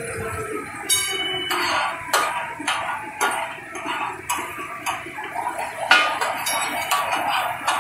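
Metal spatulas striking and scraping a large flat griddle as katakat is chopped and stirred on it: irregular clangs about once or twice a second over a sizzle of hot oil.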